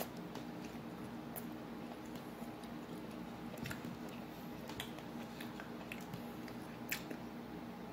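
A man chewing a mouthful of taco, quietly, with a few faint wet mouth clicks along the way.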